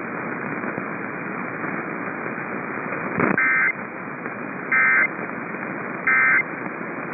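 Three short bursts of EAS/SAME digital data tones, each about half a second long and a little over a second apart, marking the end of the warning message. They come over a steady hiss of radio static from the weather radio receiver.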